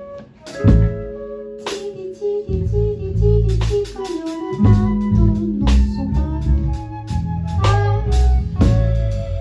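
A live band playing an instrumental passage: a drum kit with cymbal strokes, bass and guitar.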